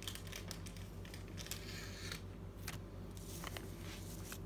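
Bag crinkling and rustling as a bowstring is pulled out of it by hand: scattered small clicks and crackles, with a short sliding hiss about two seconds in, over a steady low hum.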